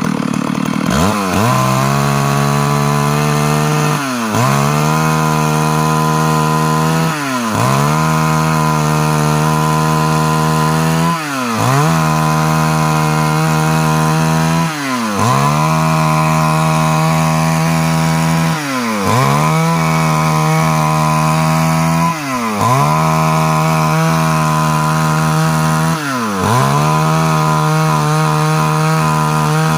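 Stihl MS382 two-stroke chainsaw running at high revs while cutting wood. About every three and a half seconds the engine pitch drops sharply and climbs straight back.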